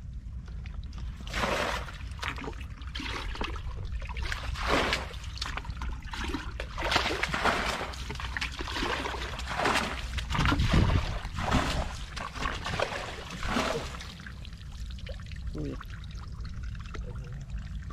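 Muddy water being bailed out of a shallow pool with a plastic bucket: repeated scoops and splashes of water thrown out, irregular and about one a second, dying down a few seconds before the end, over a steady low rumble.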